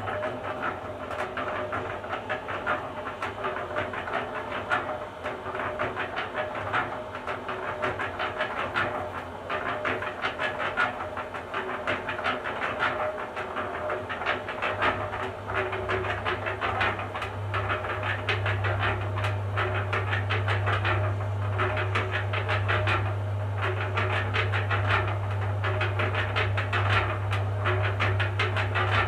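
Small electric cement mixer switched on and running, its turning drum giving a fast, steady clatter over a constant tone. About halfway through, a strong low hum joins in and holds as the drum is tilted forward on its handwheel.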